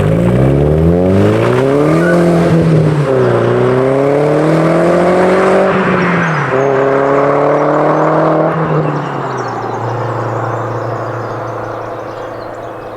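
Audi S3's turbocharged four-cylinder engine and exhaust accelerating, the pitch climbing and dropping at upshifts about three, six and nine seconds in, then holding a steady lower note that slowly fades.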